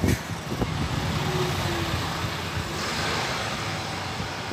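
Diesel engine of a Mercedes-Benz coach pulling away from a bus stop and driving off, a steady low engine note with road and tyre noise.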